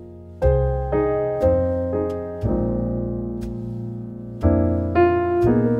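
Background piano music: slow chords struck about once a second, each note ringing and fading before the next.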